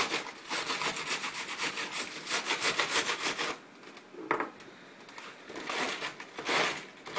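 A brush scrubbing over keyboard keys wet with cleaner, in quick back-and-forth strokes about five or six a second. About halfway through the scrubbing stops, and a few single slower strokes follow.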